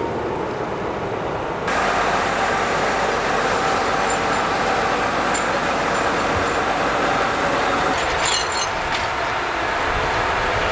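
John Deere tractors working a grass silage clamp: engines running steadily under load while a rear-mounted silage distributor spreads chopped grass. The noise becomes louder and brighter about two seconds in.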